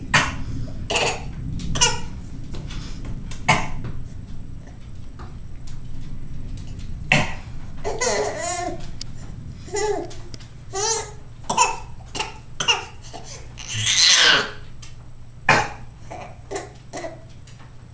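A man coughing in short single coughs, over and over, with a toddler laughing and babbling between them.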